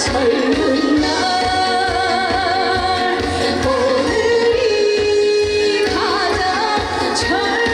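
Trot song played loud over a PA: a singing voice with wide vibrato carries the melody over a backing track with a steady beat.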